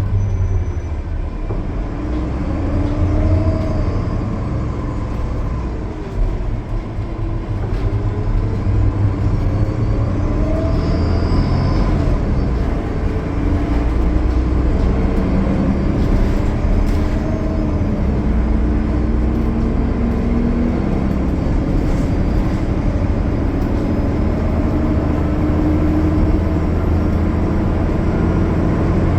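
Diesel drivetrain of a 2020 Gillig Low Floor 40-foot transit bus, its Cummins ISL9 engine and Voith D864.6 transmission, running at highway speed: a steady low drone with whining tones that drift up and down a little, over road noise.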